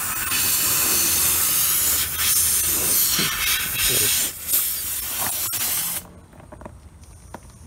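Compressed air hissing loudly out of a car tyre's nail puncture, in slightly uneven surges, then stopping abruptly about six seconds in as the repair plug is pushed into the hole.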